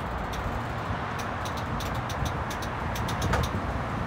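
Amtrak California bilevel passenger cars rolling slowly past: a steady low rumble, with a run of quick light clicks starting about a second in.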